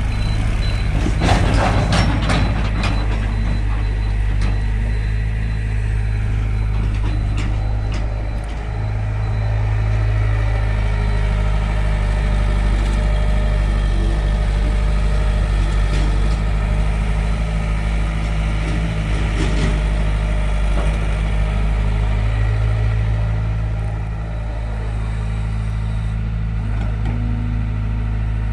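Heavy diesel machinery engine running steadily, from the backhoe loader or the tractors, with its load rising and easing a little. There are several sharp knocks in the first few seconds.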